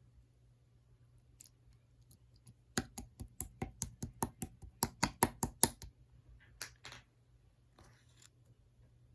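Purple marbled slime being squeezed and kneaded by hand, giving a quick run of sharp popping clicks from trapped air, about five a second for some three seconds, then two more pops and a short scratchy rustle.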